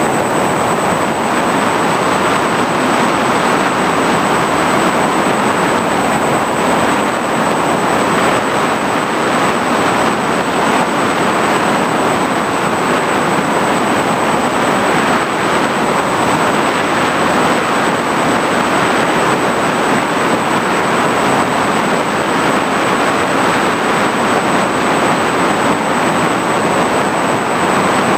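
FPV drone in flight: an even, steady rush of propeller and wind noise, with a faint high steady whine above it.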